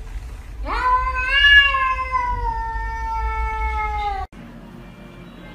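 Domestic cat giving one long, drawn-out meow lasting about three and a half seconds, rising sharply at the start and then sliding slowly down in pitch; it cuts off suddenly.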